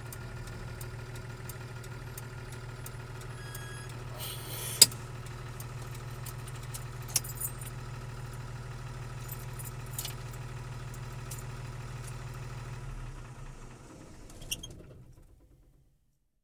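1984 Bedford diesel truck engine heard from inside the cab, running steadily with a low drone, then switched off about 13 seconds in and winding down to a stop within about two seconds. A sharp click about five seconds in is the loudest sound, with a few lighter clicks and rattles, one just before the engine dies.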